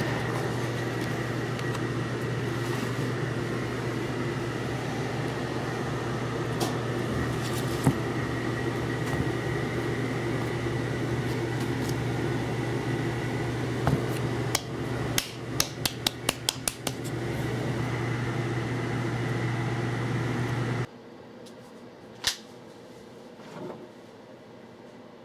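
A steady machine hum with a quick run of about eight sharp clicks some fifteen seconds in. The hum stops abruptly near the end, and a single sharp snap follows.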